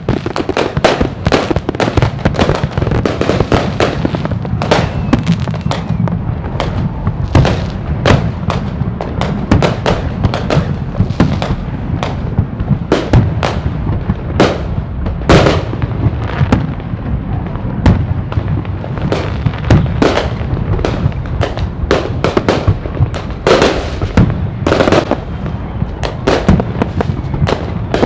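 Fireworks display: dense, near-continuous bangs and crackles, several a second, over a steady low rumble.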